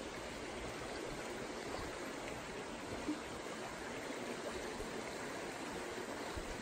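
Small rocky stream running over shallow riffles: a steady rush of water.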